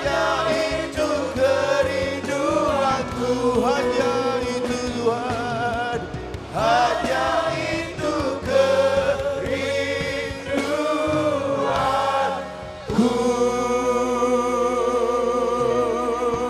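Gospel worship music: singers and a choir-like group of voices singing over a worship band, with wavering, vibrato-laden lines, settling about thirteen seconds in onto one long held chord.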